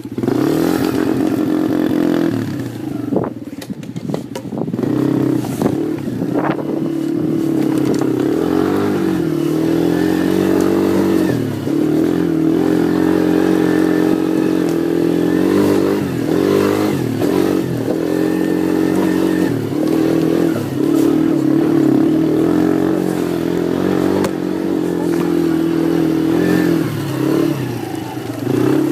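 Quad (ATV) engine running under load while riding over rough snowy ground, its pitch rising and falling repeatedly as the throttle is worked. Some clattering knocks a few seconds in.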